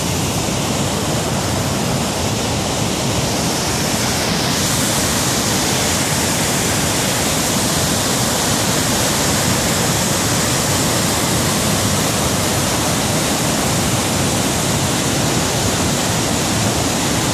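A karst spring river in flood: swollen white water rushing down rocky cascades in a steady, even rush.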